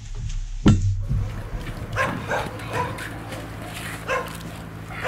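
A dog barking repeatedly, a short bark about every half second, starting about two seconds in, over a steady low hum.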